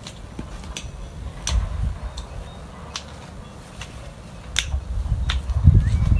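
Scattered sharp clicks or ticks, irregular and roughly one a second, over a low rumble that swells twice, near the middle and toward the end.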